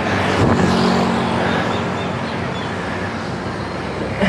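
Road traffic: a motor vehicle's engine running steadily close by, over a continuous rush of road noise.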